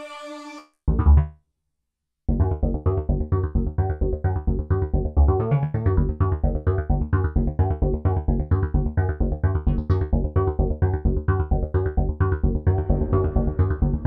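Novation MiniNova synthesizer: a held tone cuts off, then one short bass hit, and from about two seconds in a fast, evenly pulsing arpeggiated pattern over a heavy bass. The pattern grows brighter near the end as the performance knobs are turned.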